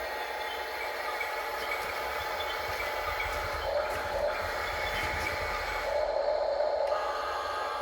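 Radio-controlled construction model machinery running: a steady mechanical whir with pitched hums that come and go.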